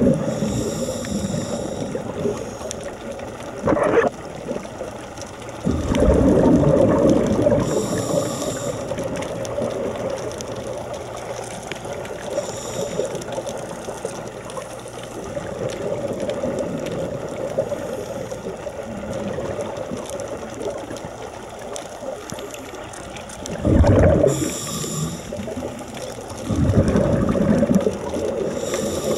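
Scuba breathing heard underwater: a short hiss from the regulator on each inhalation and a longer rush of bubbles on each exhalation, repeating every several seconds over a steady low hum.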